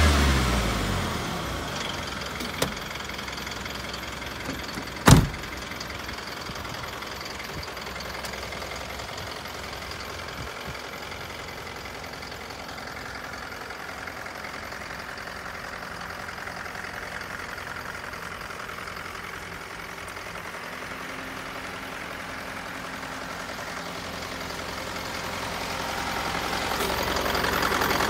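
Isuzu Elf light truck's engine dropping back from a rev in the first second, then idling steadily, growing louder near the end. One sharp knock about five seconds in.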